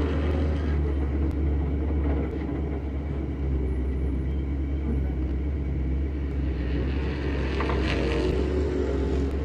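Stock car engine running steadily at low revs, a constant low rumble.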